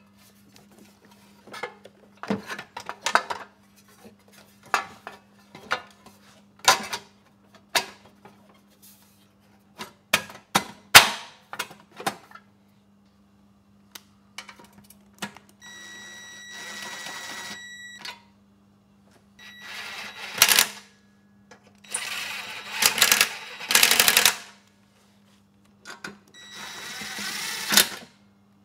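Hand tools and metal engine parts on a walk-behind mower: a run of separate clinks and knocks as the blower housing and recoil starter are fitted, then several bursts of rapid ratchet clicking, each about two seconds long, as the bolts are run in.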